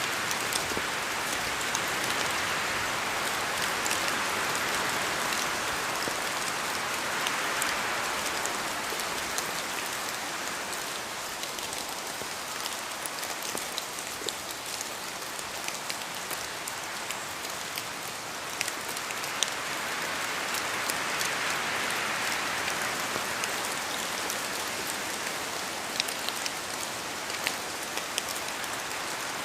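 Steady rain falling in a forest, with many single drops ticking close by over an even rushing hiss. The hiss swells twice, near the start and again about twenty seconds in, as wind gusts through the trees.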